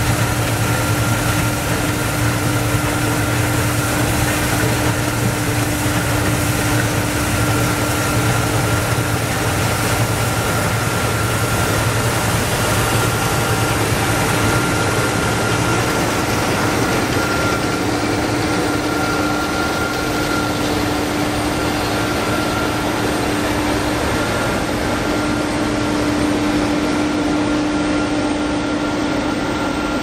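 Lexion combine harvester cutting and threshing rice: a steady engine and machinery drone with a constant hum and a higher steady whine over it.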